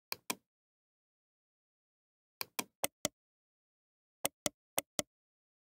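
Computer mouse button clicks in quick pairs: two at the start, then four, then four more near the end, with dead silence between.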